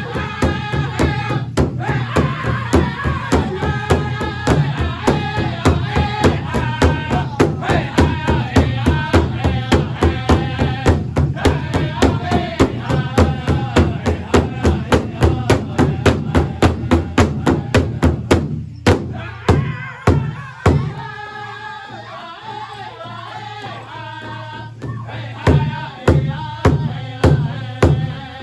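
A pow wow drum group sings over a large powwow drum beaten steadily, about three beats a second. Past the middle the drumming breaks into a few hard, spaced strokes. The voices carry on with little drum for a few seconds, then the steady beat comes back near the end.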